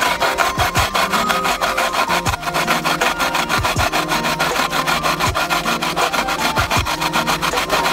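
Unpeeled daikon radish grated on a clear plastic grater: fast, even rasping strokes, several a second, as the radish is rubbed back and forth over the teeth to make grated daikon.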